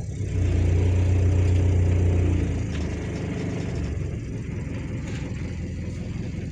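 Thornycroft-marinised BMC four-cylinder diesel inboard, thought to be a 1.5, running: it runs louder for about two seconds near the start, then settles back to a steady idle. The engine is preheated and starts and runs well.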